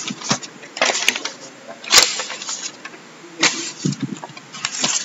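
Sheets of printed paper being handled and turned over, giving several short crackling rustles spread through the moment.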